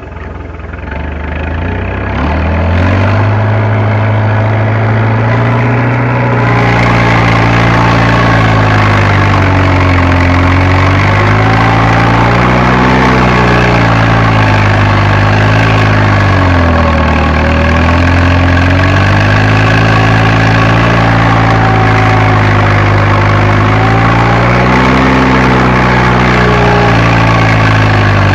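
Fiat Agri tractor's diesel engine drops to low revs, then picks up over the first few seconds and keeps running, its pitch rising and dipping gently every few seconds. About six seconds in, a louder hiss joins the engine.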